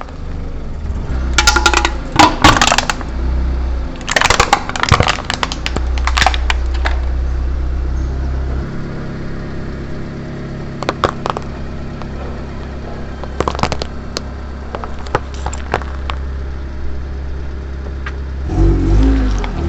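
Car tyre rolling slowly over and crushing crunchy objects: clusters of crackling and cracking about a second and a half in and again around four to six seconds, then a few single cracks, over the steady low hum of the car's engine.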